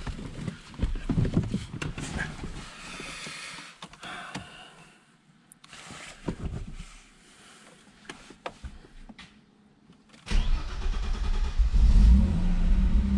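A few clicks and knocks in the car cabin, then the Opel Calibra's V6 engine is cranked about ten seconds in, catches after a short crank and runs at a steady idle. It starts up pretty good on its newly replaced fuel pump; the old pump had been too weak to start it.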